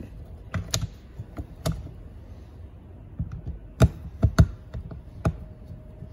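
About ten sharp, irregular clicks and knocks from a screwdriver and metal parts against a Honda GX120 recoil starter as its centre screw is tightened down. The loudest knocks come close together a little before the middle.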